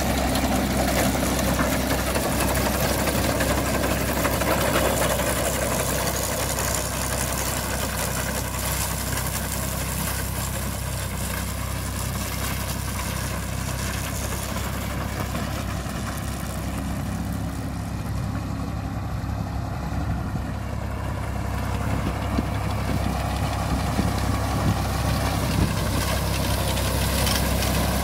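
1958 Fordson Dexter tractor's engine running steadily as it pulls a ground-driven McCormick reaper and binder through standing grain. It grows fainter in the middle as the tractor moves away and louder again near the end as it comes close, with a few sharp clicks from the machinery.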